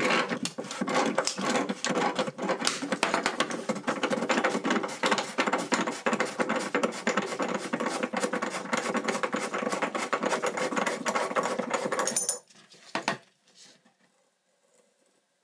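Old tub drain being unscrewed from the bathtub with a tub drain wrench: a fast, continuous metallic rattling and clicking that stops about twelve seconds in, with one last click shortly after.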